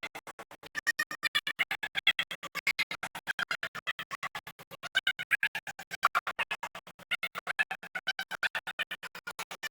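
Music broken up by a rapid, even stutter of audio dropouts, about seven or eight a second. This is a recording fault: the audio was damaged when the power failed.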